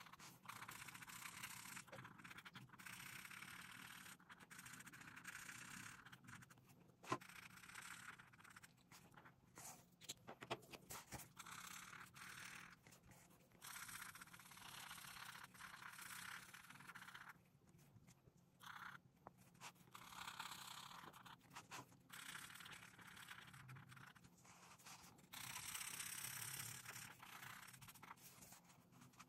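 Felt-tip marker scratching across colouring-book paper in short back-and-forth strokes with brief pauses, quiet throughout. A sharp click comes about seven seconds in, with a few lighter ticks shortly after.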